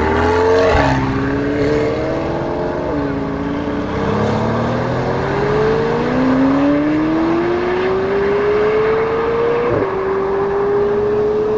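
Drag-race run: the engine-swapped Mercedes-Benz V-Class van with a 585 hp AMG 4.0 L V8 biturbo and a McLaren 720S's twin-turbo V8 accelerate hard from a standing start. The engine notes climb through the gears, with upshifts about a second in, about three seconds in and near ten seconds.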